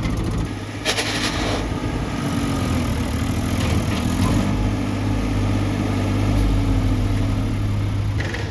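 Heavy diesel machinery engine running steadily. Its pitch wavers up and down a little for a couple of seconds, and there is a sharp knock about a second in.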